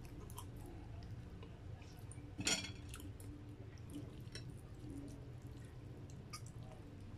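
A metal fork clinking and scraping against a glass bowl of noodle soup, with small wet clicks of broth and noodles. There is one louder knock about two and a half seconds in.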